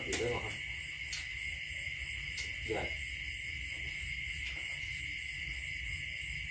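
Steady, unbroken high-pitched drone of night insects, with a couple of brief murmured words from people nearby.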